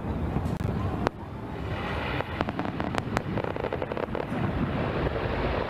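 Aerial fireworks shells going off: sharp bangs about a second in and a quick cluster of cracks around three seconds, over a steady low rumble.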